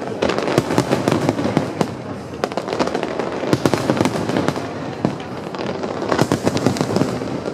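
Fireworks display: a dense, unbroken run of bangs and crackling bursts, many overlapping shells going off every second.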